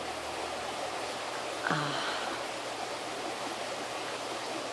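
Steady, even background hiss, with one short vocal sound from a woman, falling in pitch, just under two seconds in.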